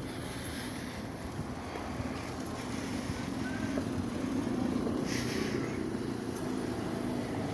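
A motor engine running with a steady low hum, growing louder from a few seconds in, with a short hiss about five seconds in.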